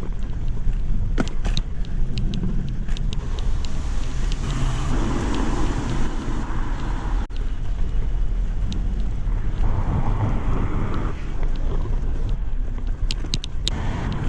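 Wind rumbling on the camera microphone while riding a bicycle, with scattered sharp clicks and rattles from the bike as it shakes over bumps, which the rider puts down to over-inflated tyres. Two stretches of louder road noise come about five and ten seconds in.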